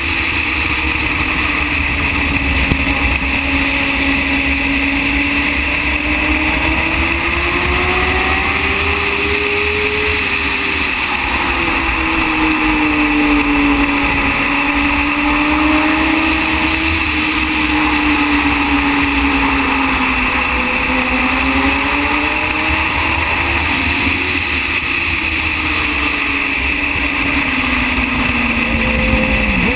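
Racing motorcycle engine heard onboard at speed, its note rising and falling slowly with the throttle through the corners and dropping sharply near the end, under heavy wind buffeting on the microphone.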